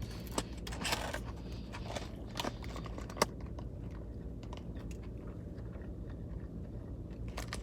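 A person chewing food close to the microphone, with small crunches and clicks that come most thickly in the first few seconds and one sharper click about three seconds in.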